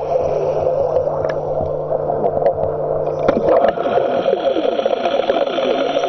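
Air bubbles gurgling out of the bow of an RC Type VII submarine model as a torpedo is fired, starting with a burst about three seconds in and turning into rapid bubbling, over a steady low hum.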